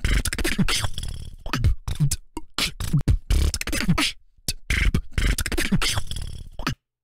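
Human beatbox freestyle: a rhythmic click roll beat of mouth-made kicks, snares and hat sounds with short falling bass tones. It cuts off suddenly near the end.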